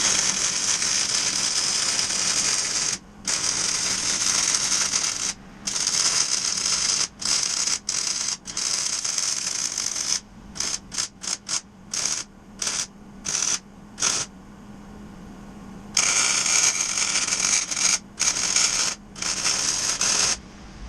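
A hissing shop tool running in long stretches with short breaks, switched on and off in quick short bursts through the middle.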